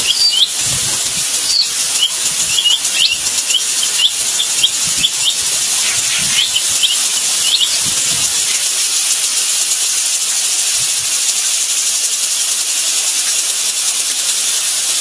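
A loud, steady hiss with short, rising bird chirps repeated over it, which stop about halfway through.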